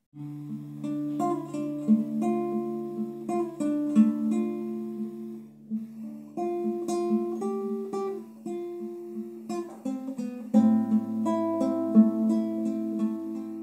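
Classical guitar playing a solo instrumental introduction, starting from silence: picked chords over held bass notes, with the bass dropping to a lower note about ten and a half seconds in.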